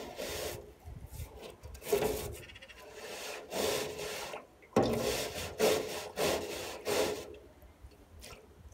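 A stiff-bristled broom scrubbing the inside of a wet metal wheelbarrow: a run of irregular scraping strokes that stop about a second before the end.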